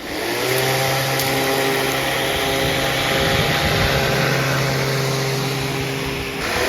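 Electric lawn mower switched on: its motor spins up within about half a second and runs at a steady pitched hum with a whirring rush of air. The sound dips briefly near the end, then picks up again.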